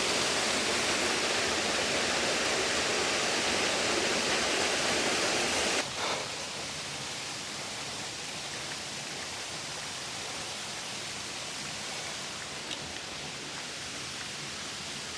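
Waterfall and rapids rushing in a steady wash of noise; about six seconds in it drops suddenly to a quieter, steady rush.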